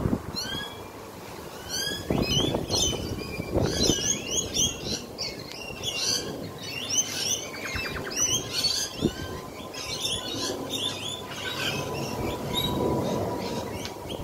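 Many small birds chirping at once, a dense chorus of short, curving high notes overlapping without pause, over a low rumbling background. A faint steady hum joins about halfway through.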